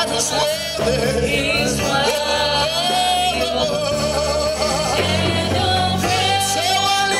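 Live gospel worship music: a man sings lead into a handheld microphone, holding and bending long notes over a band with a sustained bass line.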